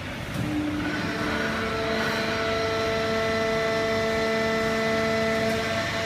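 Fully automatic horizontal hydraulic baler and its feed conveyor running: a steady mechanical hum with a whine of several steady tones that builds up in the first second, then holds level.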